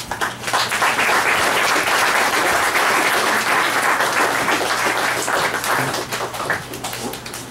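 Audience applauding: dense clapping that starts right away, holds steady for several seconds and thins out near the end.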